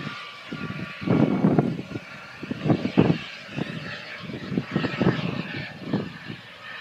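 Radio-controlled J-10 model jet flying at a distance on approach, heard as a faint steady whine. Irregular low rumbling gusts, like wind buffeting the microphone, come and go throughout and are the loudest sound.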